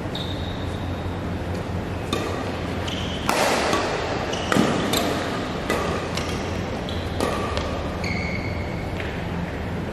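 Badminton doubles rally on an indoor court: sharp racket-on-shuttlecock hits about a second apart, mixed with short high squeaks of shoes on the court floor, loudest around the middle of the rally.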